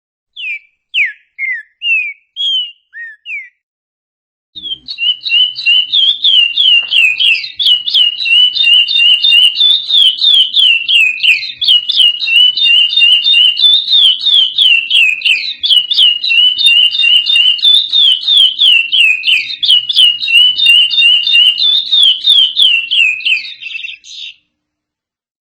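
Songbird singing: a short phrase of a few falling whistled notes, then after a pause a long unbroken song of rapid, clear repeated notes lasting about twenty seconds.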